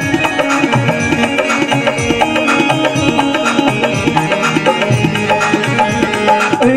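Instrumental interlude of a Rajasthani folk bhajan: a hand drum keeps a steady beat under held melodic tones, with no singing.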